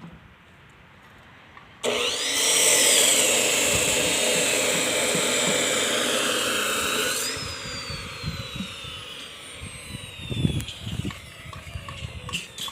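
A handheld power tool is switched on and runs loudly for about five seconds, then is switched off, its whine falling as it spins down. A few low knocks sound near the end.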